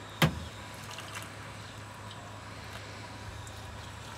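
One sharp metallic knock as a stovetop kettle is handled, over a steady low machine hum.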